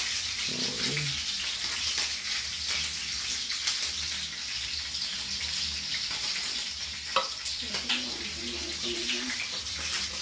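Vinegar poured from a plastic bottle into a large glass jar of sliced carrot, onion and garlic: a steady hiss of running, splashing liquid, with a couple of light ticks against the glass around seven seconds in.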